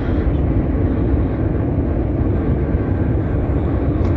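Steady, loud low rumbling noise with no clear pitch.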